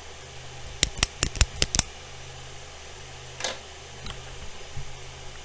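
A quick run of about seven sharp keystroke clacks within a second, then a single keystroke about two seconds later, on a custom GMMK tenkeyless mechanical keyboard with lubed C3 Tangerine linear switches. A low steady hum lies underneath.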